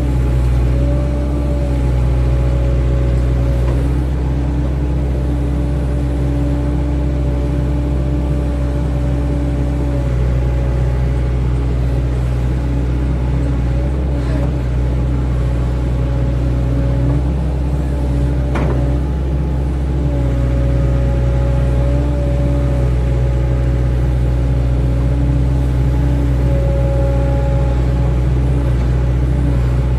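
Hydraulic excavator's diesel engine running steadily under load, with a pitched hydraulic whine that cuts out briefly now and then, and two sharp knocks around the middle as it works the soil.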